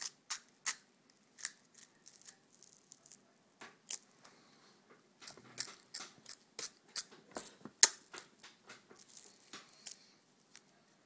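A baby biting and chewing a crisp spinach, kale and apple teething wafer: an irregular run of sharp little crunches, a couple a second, the loudest about eight seconds in.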